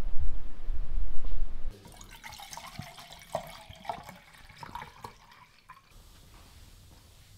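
Wind buffeting the microphone as a loud low rumble, cut off suddenly under two seconds in. Then water poured from a bottle into a Primus gas stove's metal pot, trickling and splashing unevenly, until about six seconds in.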